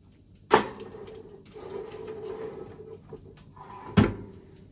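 Two sharp clunks about three and a half seconds apart, with a low steady hum sounding after the first.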